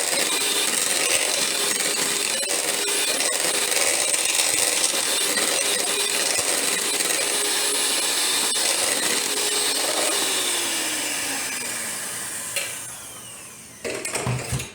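Electric hand mixer running steadily, its beaters whipping a thick, partly solidified hair-grease mixture in a bowl. Near the end it winds down, its pitch falling as it is switched off, and a short clunk follows.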